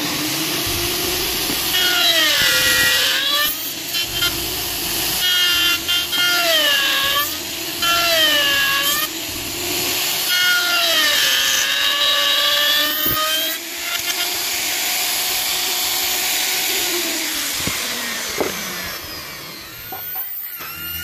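Handheld electric router cutting into a wooden door-frame piece: a steady motor whine that drops in pitch each time the bit bites into the wood and climbs back as it frees, about four times.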